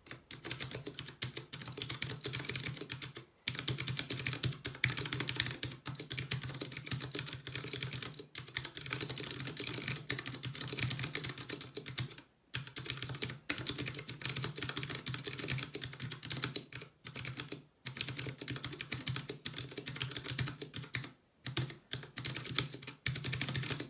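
Typing on a Vortex Core 40% mechanical keyboard with Cherry MX Brown switches, a fast continuous run of keystrokes with a few short pauses. The keys bottom out with quite a thunk that resonates through the solid wood desk under the keyboard.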